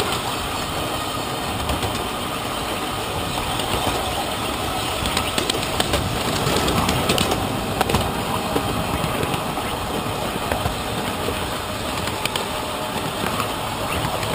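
A 7¼-inch gauge miniature train, pulled by a battery-electric locomotive, running along the track: a steady rumble and rattle of wheels on rails, with scattered clicks.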